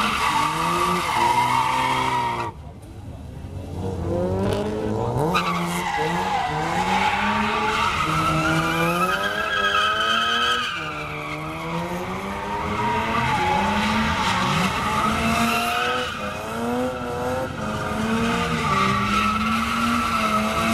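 BMW E36 coupe doing donuts: the engine revs up and down at high revs while the rear tyres spin and squeal on the asphalt. The revs drop off briefly a few seconds in, then pick up again.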